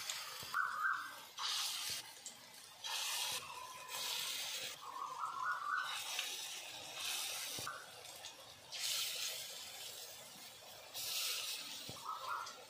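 Dollops of ground khesari dal batter sizzling in hot oil in an aluminium kadai. The sizzle comes in repeated bursts, one every second or two, as each fritter is dropped in by hand.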